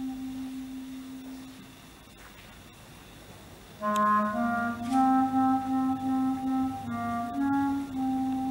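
Solo clarinet: a long low held note fades away, and after a pause of about two seconds a short melodic run of changing notes begins about four seconds in and settles on another long held note.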